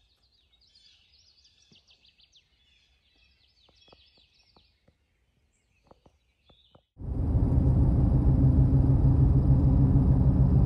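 Faint songbirds chirping over a quiet woodland, with a few soft clicks. About seven seconds in, it cuts sharply to loud, steady road rumble from inside a moving truck's cab: engine and tyre noise.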